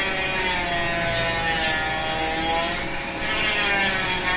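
Rotary power-carving tool with a carbide bur grinding into redwood, its motor whine sagging and rising slightly in pitch as the bur bites. A steady rush of air from the vacuum drawing the dust through the shield runs underneath.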